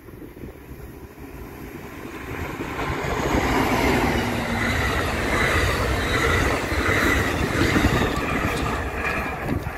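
Amtrak Pacific Surfliner passenger train passing close by: the Siemens Charger diesel locomotive and its bilevel coaches, wheels running over the rails. The sound builds over the first three seconds, then stays loud and steady.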